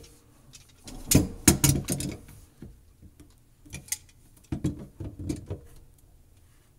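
Channel-lock pliers clicking and knocking on the slip nuts of a sink drain trap as the nuts are snugged down: a quick cluster of sharp clicks about a second in, then a few lighter ones later.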